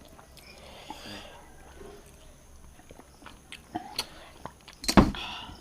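Quiet eating sounds at a meal: small scattered clicks and soft smacks of chewing and handling food, with one loud knock about five seconds in.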